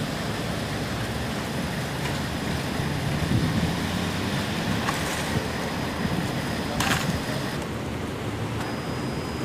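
Steady, rushing road traffic noise, with a brief sharp clatter about seven seconds in.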